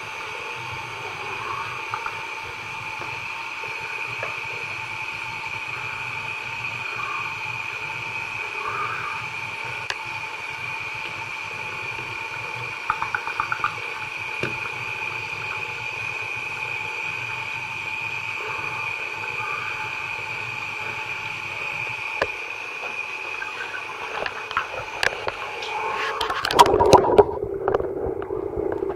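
Water running steadily into a filled bathtub, a steady watery hiss. Near the end splashing and sloshing build up, and the sound turns muffled and gurgling as it is heard from under the water.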